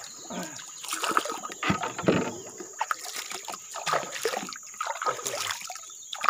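Water splashing and trickling around a giant snakehead (toman) held at the river's surface beside a boat, with irregular splashes as the fish is dipped and moved in the water.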